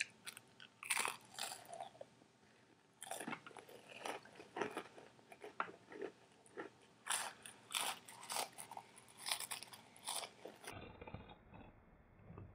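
Saltine crackers spread with peanut butter being bitten and chewed quickly: irregular crisp crunches with open-mouthed chewing, pausing briefly a little after two seconds in.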